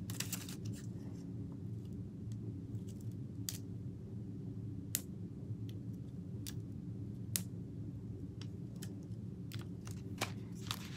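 Hands handling pieces of cardstock and a roll of glue dots: scattered light clicks and taps over a steady low room hum.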